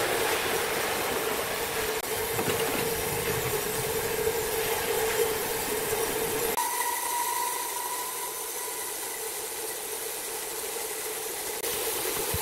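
Horizontal band sawmill running, its blade sawing through a large hardwood stump: a steady machine hum with a held tone and hiss. About halfway through the sound shifts abruptly and goes thinner, and a higher whine is heard for a couple of seconds.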